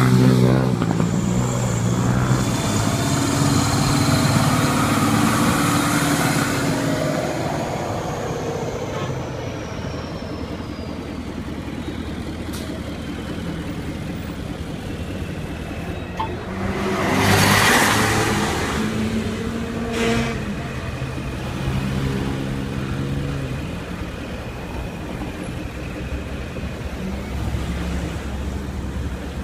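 Road traffic passing close by: car and bus engines running as vehicles drive past, with a whine that falls slowly over the first several seconds. A loud rushing hiss comes about seventeen seconds in.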